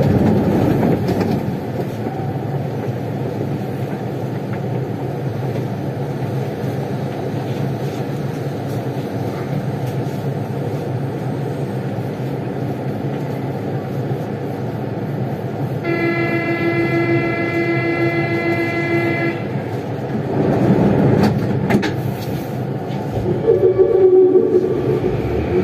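Siemens VAL 208 NG rubber-tyred automated metro train running through a tunnel, heard from inside the car: a steady rumble of the running train. Past the middle a steady tone with several overtones sounds for about three seconds, and near the end a rising whine comes in.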